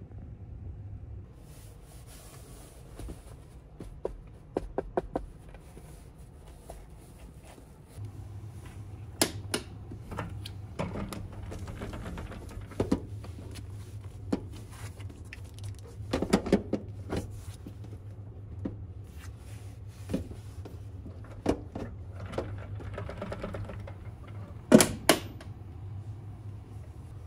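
Scattered clicks and light knocks of things being handled, over a steady low hum; the loudest knock comes near the end.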